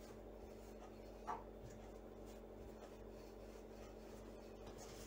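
Faint soft rubbing of a wooden rolling pin rolling out flatbread dough on a floured counter, over a steady low hum. One brief short sound stands out about a second in.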